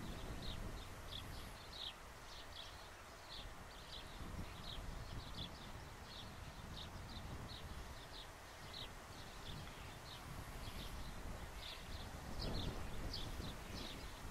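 Steady high-pitched chirping from a small animal, about two chirps a second, over a low outdoor rumble that grows louder near the end.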